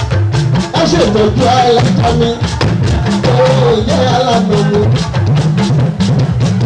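Music with a steady, fast drum beat over a repeating bass line, and a wavering melody line above it.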